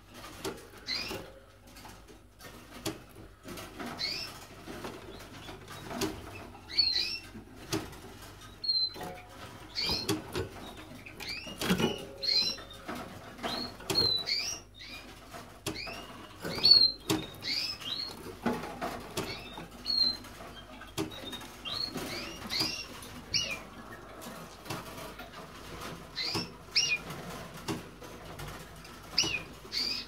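Caged finches giving short, high, rising chirp calls, roughly one every second or two, mixed with wing flutters and light knocks of birds hopping on perches and cage wire.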